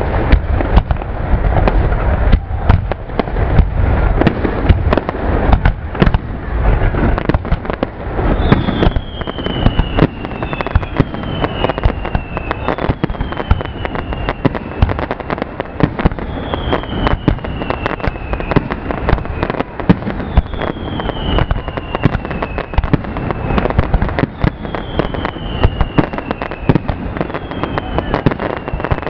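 Aerial fireworks display: a dense, continuous run of shell bursts, booms and crackle. About a third of the way in, a falling whistle starts repeating roughly every two seconds over the bursts.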